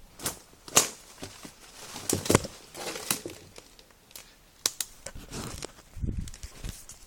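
Rustling and crackling handling noise with a string of sharp clicks and knocks, the loudest a little under a second in and about two and a half seconds in.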